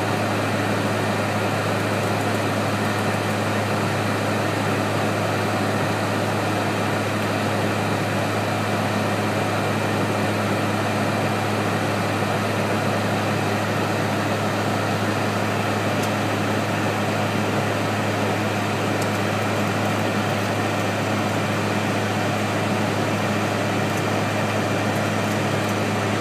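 Steady cabin noise of a Dornier 328 airliner in flight: an even drone of engines and rushing air with a constant low hum.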